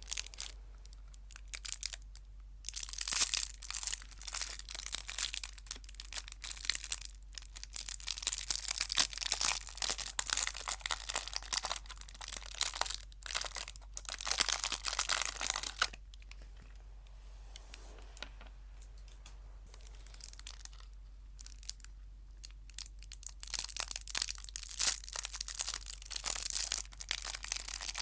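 Food wrapper being crinkled and torn close to the microphone, in bursts of dense crackling with a lull a little past halfway.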